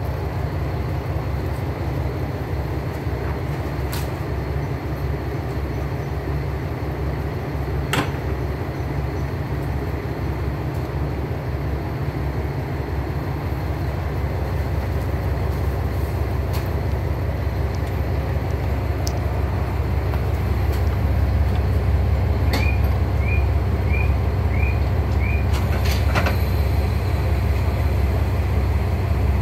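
Diesel railcars standing coupled, their engines idling with a steady low drone that grows a little louder in the second half. A single metallic clank comes about 8 seconds in as the coupling is worked, and five short high chirps come in quick succession later on.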